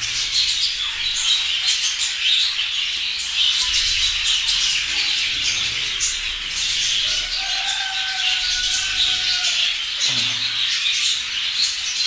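A colony of budgerigars chattering and chirping continuously, a dense mass of many overlapping high calls.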